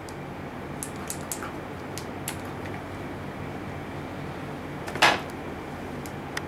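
Hand-pump cupping gun drawing suction on a plastic hijama cup, with a few light clicks in the first two and a half seconds. A louder short noise comes about five seconds in. A steady low hum runs underneath.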